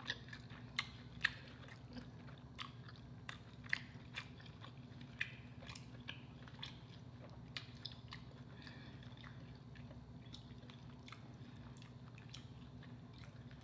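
Close-up eating sounds: lobster meat chewed with the mouth closed, with scattered sharp wet clicks and smacks, more of them in the first half. A faint steady low hum runs underneath.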